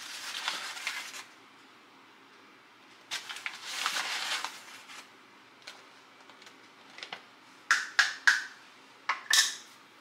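Plastic flour bag rustling as a measuring cup scoops flour, in two spells of crinkling and scraping, then a few sharp taps and clinks of the cup near the end.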